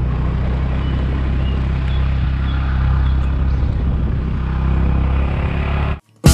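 Scooter engine running steadily under the rush of wind on the helmet-mounted camera's microphone, cutting off suddenly about six seconds in.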